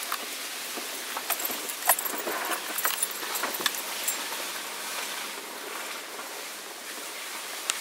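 Cabin noise of a 4x4 moving along a trail: a steady hiss of road and wind noise. In the first few seconds it carries a cluster of small clicks and jingly rattles.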